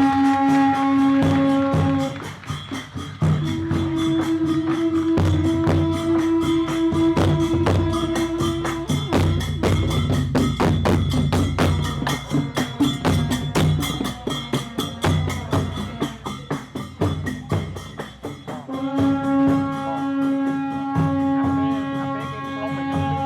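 Ensemble of recreated Angkorian instruments playing: long held melodic notes over a steady beat of drums and clappers. The held note changes pitch a few seconds in, gives way to a stretch of busy percussion in the middle, and returns near the end.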